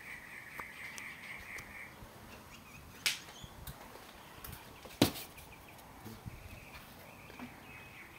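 Two sharp clicks about two seconds apart over faint outdoor background, the second the louder. A rapid, high, pulsing chatter runs through the first two seconds and returns faintly near the end.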